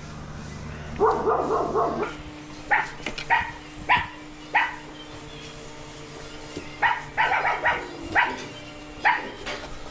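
A dog barking repeatedly in short, sharp barks, sometimes singly and sometimes in quick runs of several.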